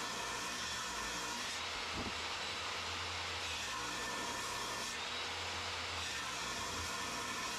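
DeWalt jobsite table saw running steadily as a Trex composite deck board is fed through the blade, ripping it lengthwise into strips.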